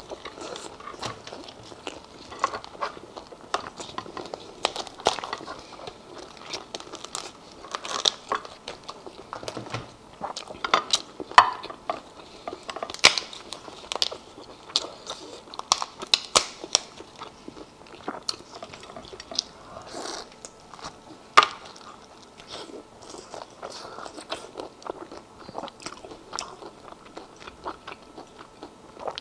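Close-miked biting and chewing of lobster meat, with many scattered sharp clicks and crunches; the loudest snaps come about 11 and 21 seconds in.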